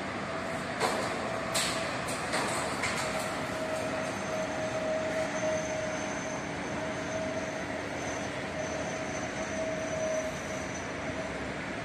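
Steady mechanical drone of construction machinery with a held tone and a faint high whine, with a few sharp metallic knocks about one to three seconds in.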